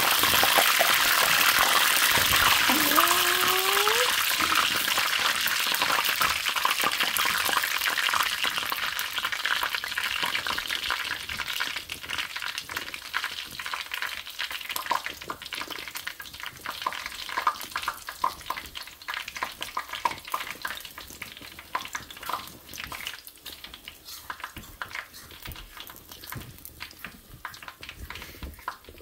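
Chicken wings frying in hot oil: a loud sizzle that gradually dies down into scattered crackles and pops. A brief rising tone sounds about three seconds in.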